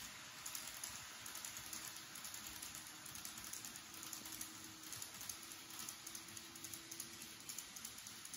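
Model of a 583 Series electric train running on its track: a faint steady rolling rattle with quick light clicks from the wheels over the rail joints, under a faint hum from the motor.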